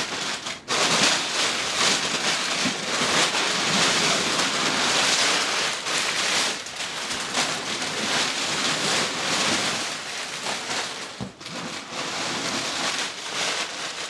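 Crumpled packing paper being pulled from a bike box and handled: dense, continuous crinkling and rustling that swells and dips.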